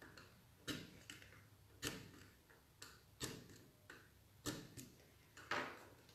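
A paper-piercing awl punching stitching holes through cardstock, one hole at a time through the holes of a We R Memory Keepers stitching template. Each puncture gives a faint, sharp click, about one to two a second, unevenly spaced.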